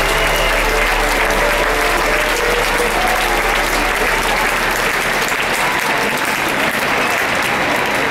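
A large stadium crowd applauding steadily.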